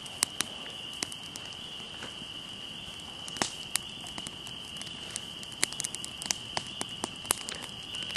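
Teepee campfire of dry sticks, just lit and catching, crackling with irregular sharp pops and snaps. Behind it runs a steady high-pitched insect chorus, likely crickets.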